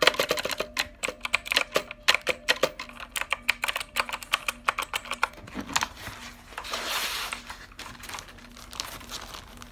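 Rapid clacking of keys being typed on an onn. RGB mechanical gaming keyboard, for about five seconds. Then a second or so of rustling as packaging is handled, with a few scattered clicks after it.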